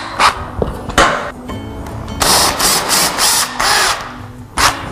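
Cordless drill driving screws into a metal bed rail in several short bursts, the longest about a second with a quick pulsing, over background music.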